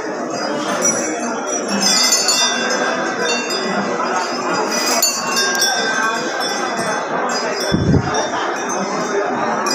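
Small metal bells jingling and ringing continuously, with many overlapping high tones. A brief low thud comes about eight seconds in.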